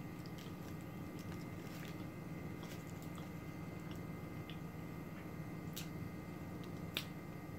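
A person chewing a soft-bread corned beef sandwich close to the microphone, with small wet mouth clicks and two sharper clicks near the end, over a steady low hum.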